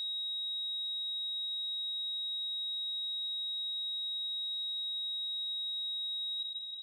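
Heart-monitor flatline tone: one steady high-pitched beep held without a break, the alarm that signals the heart has stopped, fading out near the end.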